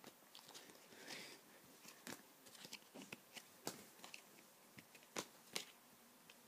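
Faint, irregular clicks and rustles of football trading cards being shuffled through and handled one at a time.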